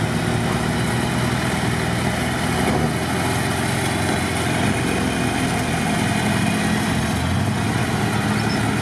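Engine of a modified UAZ-469 off-roader on oversized mud tyres running steadily under load as it claws up a muddy bank, its front tyres not getting grip.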